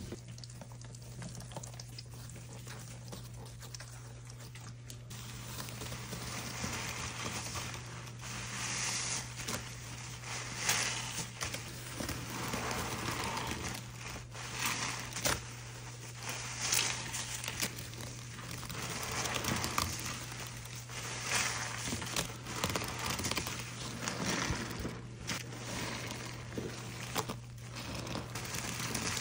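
Two soapy horse sponges squeezed and kneaded by gloved hands in a basin of foaming cleaner: wet squishing and fizzing, crackling lather in irregular bursts. It is quieter for the first few seconds and busier after that, over a low steady hum.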